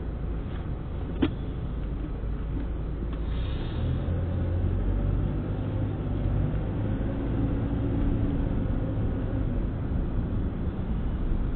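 Car cabin noise: low engine and road rumble as the car moves off in traffic and picks up speed, growing a little louder about four seconds in. One sharp click about a second in.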